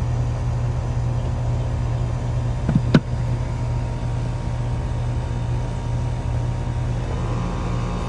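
Goodman 3-ton air-conditioner condenser running with a steady low hum, its compressor up to speed after a soft start on portable-generator power. A brief knock about three seconds in.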